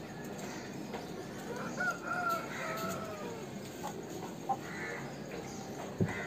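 An Aseel rooster crows once, a drawn-out call starting about a second and a half in. A sharp thump comes near the end.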